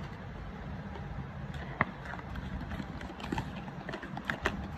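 A cardboard gift box being handled and opened by hand: a few light, irregular taps and clicks as the box is tipped and its flap is opened, over a steady low background hum.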